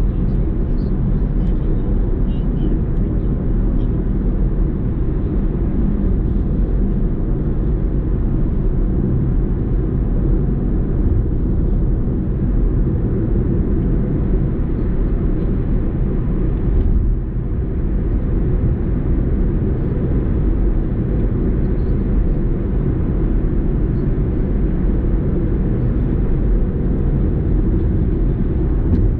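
Steady low rumble of road and engine noise from a car driving on a highway, with a brief lull a little past halfway.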